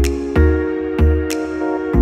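Background music: an electronic track with held synthesizer chords and a steady kick-drum beat.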